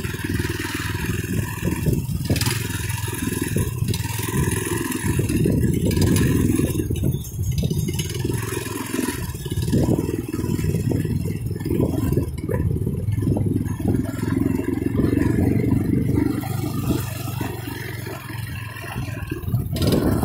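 TrailMaster MB200 mini bike's small single-cylinder engine running, rising and falling in level, with repeated knocks and clatter as the bike rides over rough grass.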